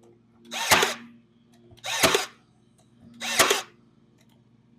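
Ryobi stapler firing three times, each shot a short, loud burst, about one and a third seconds apart, fastening cedar picket boards together.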